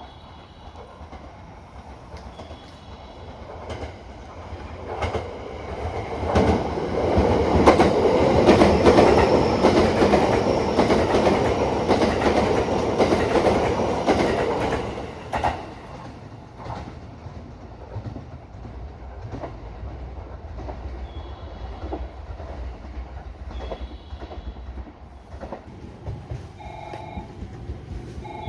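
Train passing through a station: a rumble that builds up, with rapid clicks of the wheels over rail joints, loudest for several seconds in the middle and then dropping off abruptly. Later, short repeated tones sound a few times.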